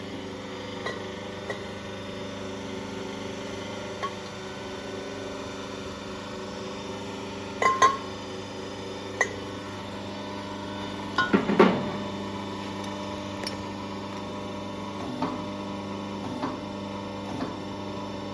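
Tools and air-suspension strut parts being handled and fitted together on a workbench: scattered clinks and knocks, with a louder clatter just before 8 seconds in and a cluster of heavier knocks around 11 to 12 seconds, over a steady electrical hum.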